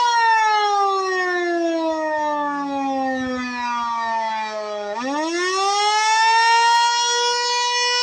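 Darley Champion electromechanical siren sounding a steady tone, then winding down and dropping slowly in pitch for about five seconds before spinning back up in a quick rising sweep to full pitch, where it holds.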